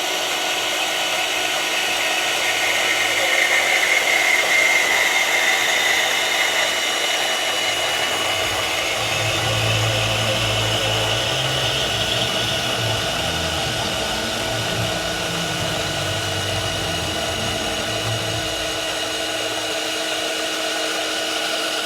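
Milwaukee M18 Fuel deep cut cordless bandsaw running with a steady whine, a little louder around the fourth to sixth second.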